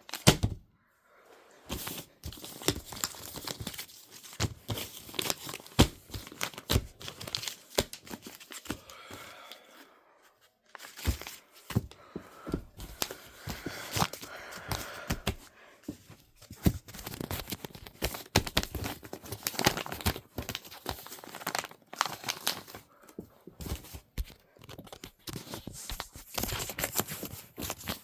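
Packaging being torn and crinkled open by hand: irregular rustling with many sharp clicks, pausing briefly about ten seconds in.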